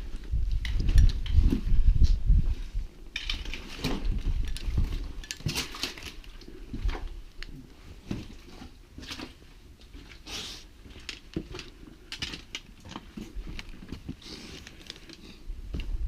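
Footsteps crunching irregularly on a rocky, leaf-strewn trail. Wind buffets the microphone for the first few seconds.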